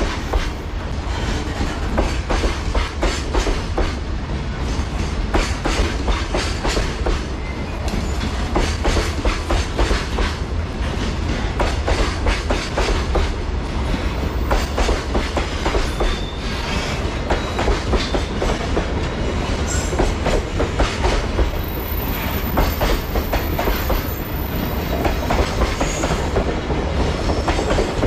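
Freight train's container wagons rolling steadily past, their wheels clicking rhythmically over the rail joints.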